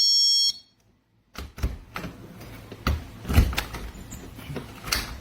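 A GE Personal Security window and door alarm sounds a high electronic tone with several pitches, which cuts off about half a second in. After a short silence come scattered light knocks and clicks.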